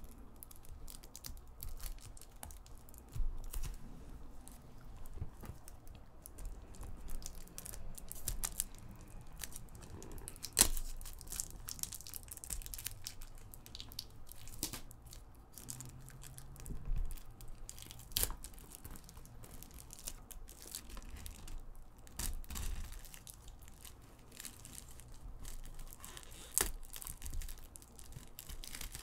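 Clear plastic shrink-wrap being torn and peeled off a cardboard jigsaw puzzle box, crinkling and crackling irregularly, with the sharpest crackle about ten and a half seconds in.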